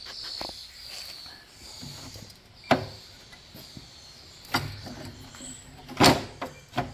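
Broken pieces of a steel mower deck being handled and fitted back together, knocking and clinking against each other and the deck. There are a few sharp knocks, the loudest about six seconds in.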